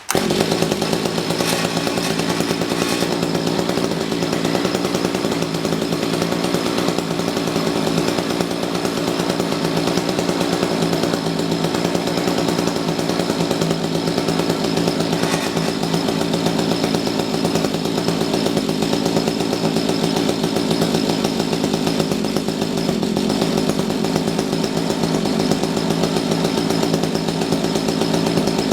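Mantis tiller's small engine running steadily on a newly fitted carburettor that is still being tuned; it is running a little funky, the mixture swinging between rich and lean.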